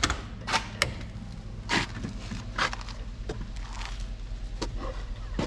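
Footsteps over a low steady hum: about six separate steps or knocks, unevenly spaced roughly a second apart.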